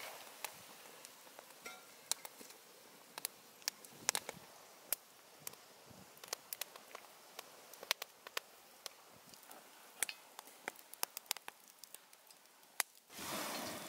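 Wood campfire crackling, with irregular sharp pops over a faint hiss. A louder rushing noise starts near the end.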